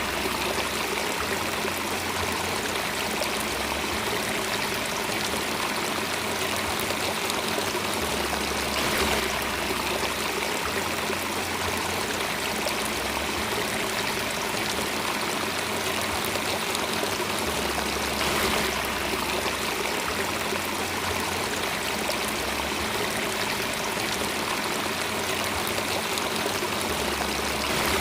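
Steady rushing and trickling of a flowing stream, with a slight swell about every nine seconds.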